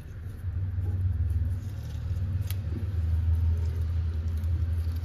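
A low, unsteady rumble that swells about half a second in, with a faint click about two and a half seconds in.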